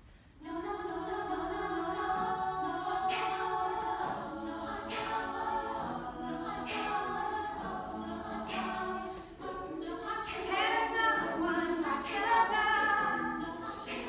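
An a cappella vocal group singing in close harmony with no instruments, coming in about half a second in. Sharp vocal-percussion hits land about every two seconds, and the voices grow fuller and higher from about ten seconds in.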